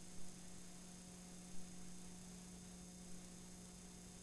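Steady electrical hum with faint hiss on the blank soundtrack of an old videotape transfer, with two brief clicks, one right at the start and one about a second and a half in.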